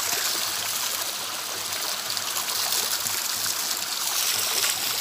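Water pouring steadily from a spout, splashing over a man bathing under it and into the pool below.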